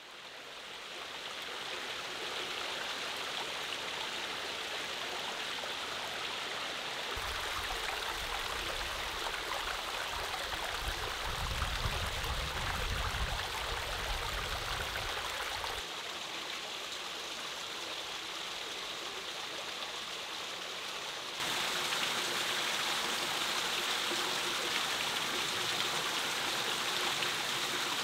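Shallow creek running over rock ledges, water trickling and splashing down small falls. It fades in at the start and shifts in level several times, with a low rumble underneath through the middle, and gets louder for the last third.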